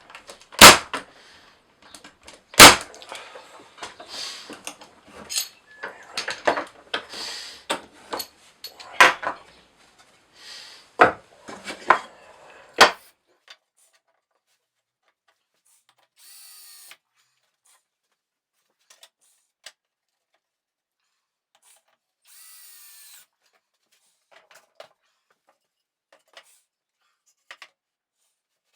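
Woodworking with hand and power tools: a run of loud knocks and clatter of timber through the first dozen seconds. Later there are two short bursts of a power drill, each winding down, with a few scattered taps.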